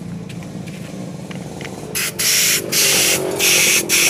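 Compressed-air blow gun fired in short hissing blasts into a motorcycle fuel-system part, blowing out water that contaminated the fuel. The blasts start about halfway through, around four of them with brief gaps between.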